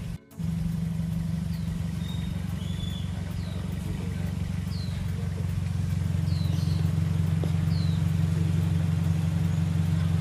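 A motor vehicle engine idling with a steady low hum, cutting out for a moment just after the start and then running on slightly louder. A bird calls over it with short, falling high chirps about once a second.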